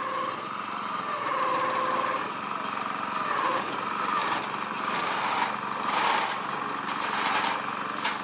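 A small engine running steadily, with bursts of rustling from fir branches as the trees are handled and pushed through the netting funnel.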